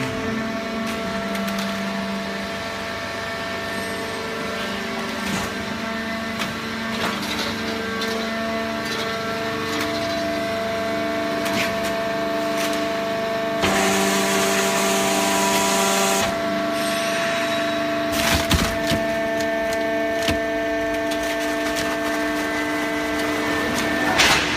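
Hydraulic cardboard baling press running: a steady hum from its motor and pump, with crackling and sharp cracks as the cardboard is crushed. A burst of hiss lasts about two seconds, starting about fourteen seconds in.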